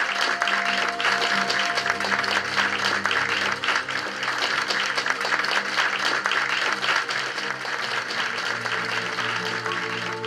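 Audience applauding, fading near the end, with background music underneath.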